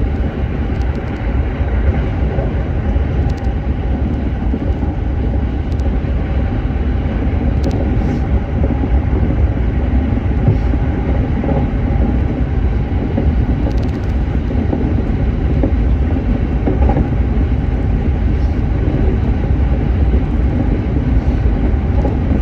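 Electric train running, a loud steady rumble of wheels on rail with faint steady tones above it.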